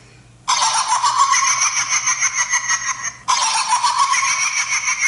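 A recorded cackling laugh, the Jigsaw horror-film laugh, played through a small device speaker, thin and tinny. It starts about half a second in, cuts off abruptly after a few seconds and immediately starts again, as a looped clip.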